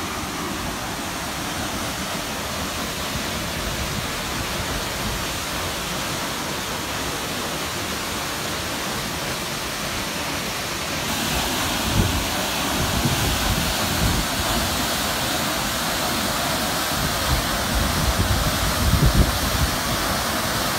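Steady rushing of falling water from the Salto del Buey, an 80-metre waterfall on the Buey river. It grows louder and hissier about halfway in, and a few low thumps come near the end.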